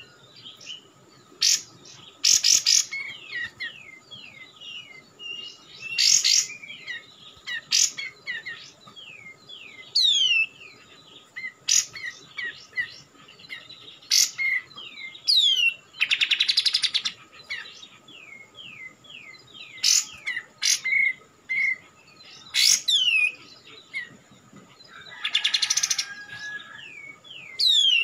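A caged kapas tembak, a bulbul, calling: a running series of short downslurred whistled notes, broken every few seconds by loud harsh chattering bursts.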